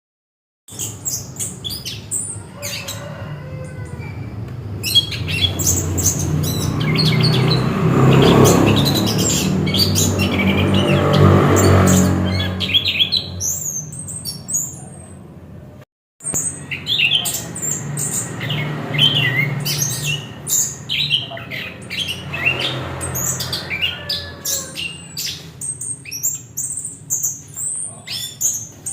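Chestnut-capped thrush (anis kembang) singing a run of quick, varied chirps and whistled phrases, over a low hum and noise that are loudest in the first half. The sound cuts out for an instant just past the middle.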